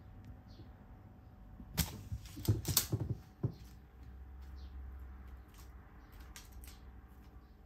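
A cat at play with a feather wand toy on a wooden floor: scattered clicks and light knocks, with a cluster of them about two to three seconds in and a few softer ticks after.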